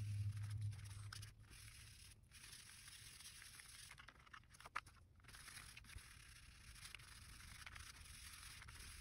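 Faint rustling and scraping of a foam sponge dabbing and wiping mineral oil onto paper, with small ticks of the paper being handled.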